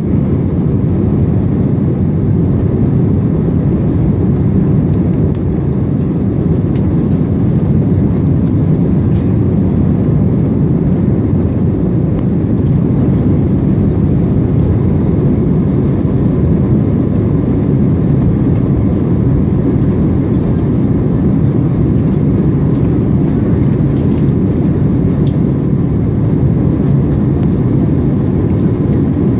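Airliner cabin noise in flight: the steady, deep rumble of the engines and rushing air, with a few faint clicks.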